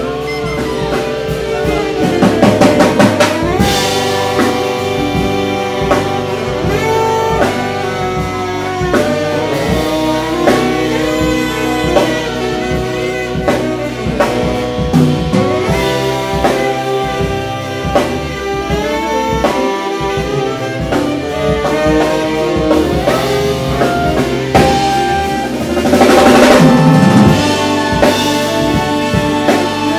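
Live jazz from a saxophone section of several saxophones playing melody lines together over a drum kit. The drums swell loudest about two seconds in and again near the end.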